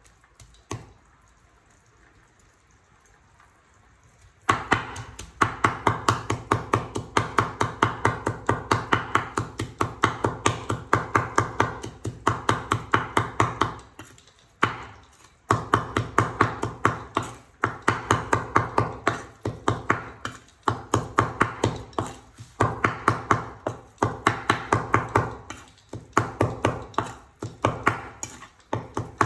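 Steel cleaver mincing garlic into prahok fish paste on a wooden cutting board. After one knock and a few near-quiet seconds, quick repeated chops start about four seconds in and go on in runs broken by short pauses.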